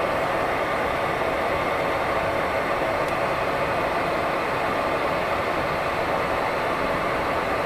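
Bombardier Dash 8-Q400's Pratt & Whitney PW150A turboprop engines and propellers running at taxi power, a steady drone heard from inside the cabin beside the wing.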